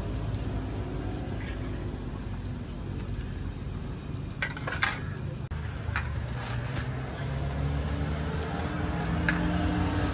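Dough sticks frying in a wok of hot oil under a steady low engine-like rumble. A few sharp metal clinks of tongs against the wok come around the middle.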